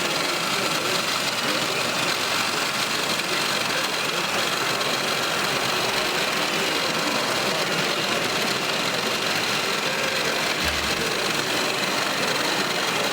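Steady mechanical whirring of radio-controlled model construction machines at work, their small motors and gearboxes running without a break, with a faint thin whine on top.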